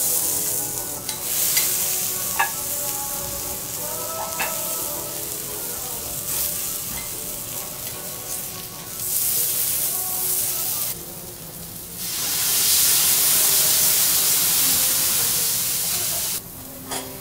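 Kuroge wagyu beef sizzling on a hot teppanyaki steel griddle, with a few sharp clinks of the steel knife and spatula in the first seconds. The sizzle swells twice into a loud hiss, the longer one in the second half as a cloud of steam billows off the griddle, then cuts back suddenly near the end.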